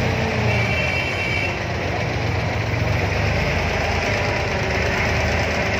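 Abra ferry's inboard diesel engine running steadily, a low even chugging heard from on board as the wooden boat gets under way.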